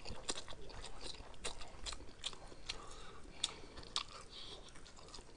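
Close-up eating of spicy noodles: chewing and slurping with many sharp, wet mouth clicks, two of the loudest a little past halfway.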